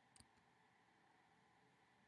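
Near silence, with one faint computer-keyboard keystroke just after the start.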